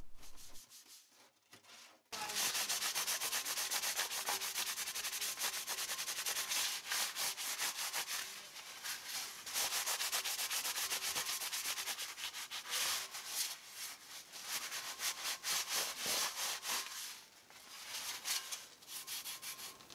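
Sponge scrubbing a perforated stainless steel utensil holder: quick, rasping back-and-forth strokes that start about two seconds in, ease off briefly near the end, then resume.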